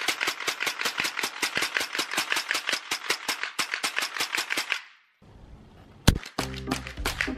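AR-style rifle firing a fast string of shots, about eight a second, that stops about five seconds in. After a short pause there is a single sharp crack, and music starts near the end.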